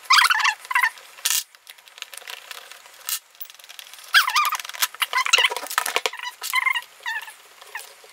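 Airsoft sniper rifle's rubber butt pad and plastic stock spacers squeaking in short, wavering bursts as they are twisted and pried off the stock, with a couple of sharp plastic clicks.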